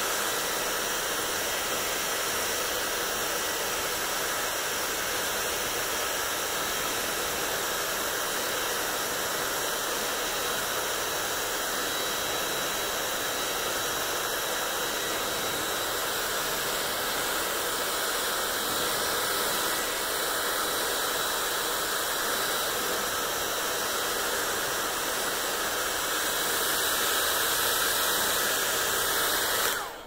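Hand-held hair dryer blowing steadily, an even rush of air with a faint high whine; it switches off right at the end.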